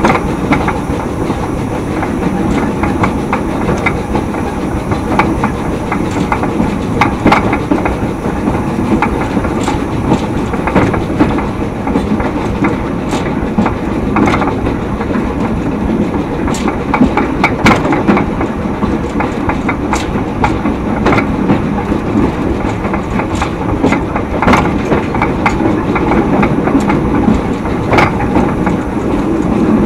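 A 2 ft narrow gauge train running along the track: a steady rumble with frequent, irregular sharp clicks from the wheels and rails.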